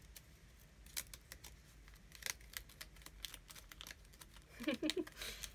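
A paper-wrapped mail package being handled and opened: scattered crinkles and sharp clicks of paper and scissors, busier near the end.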